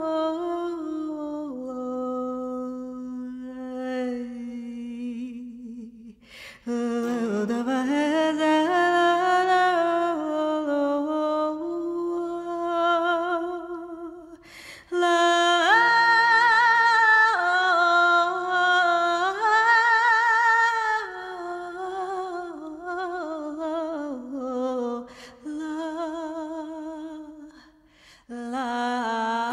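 A woman singing a slow Macedonian folk melody in the Hijaz mode, in long phrases with vibrato and held notes, over a soft Macedonian tamboura accompaniment. There are short breaks between phrases, about six and fifteen seconds in and again near the end.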